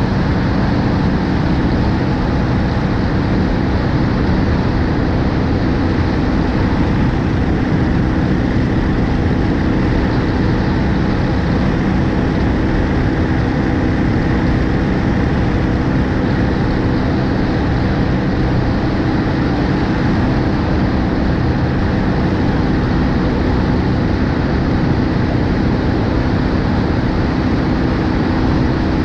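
BMW R1250GSA motorcycle's boxer-twin engine running steadily at cruising speed, mixed with wind and road noise, heard from a camera mounted on the front of the bike.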